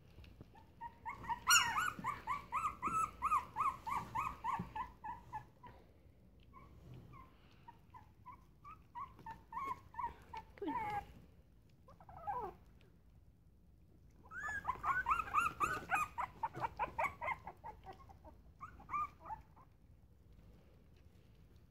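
Boston Terrier puppies whimpering in quick, repeated high squeaks, about five a second, in two runs of several seconds each, with scattered single whines and a falling whine between them.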